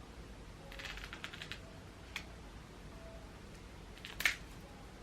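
Hands working at the packaging of an Apple AirPods box: a quick run of small clicks and rustles about a second in, a single click a second later, and one louder sharp click a little after four seconds.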